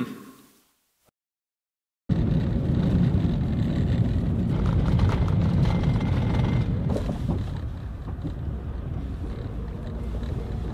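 Steady low rumble of road and tyre noise inside a moving car's cabin, starting abruptly about two seconds in after a brief silence and easing a little in the last few seconds.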